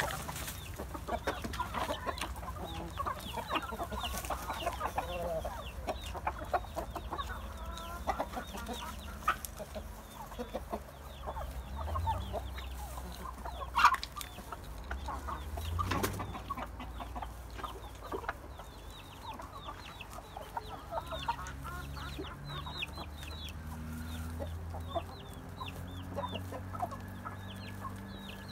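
A flock of domestic hens clucking softly as they peck and feed on fresh greens, with many short high peeps throughout and one sharp knock about fourteen seconds in.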